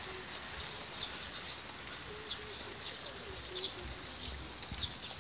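Footsteps on wet stone paving, a sharp scuff every half second to second, over a steady hiss of rain.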